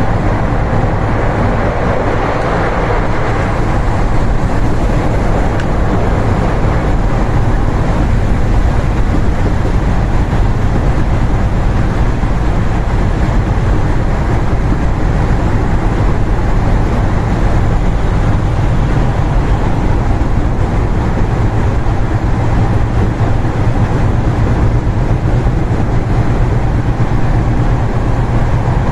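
Tokyu 3020 series commuter train running at speed between stations, heard from inside the car: a steady, loud rumble of running noise with a low hum.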